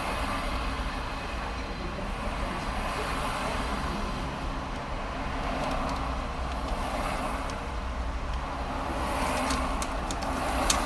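Steady rush of motorway traffic, swelling every couple of seconds as cars pass. A few faint clicks come near the end.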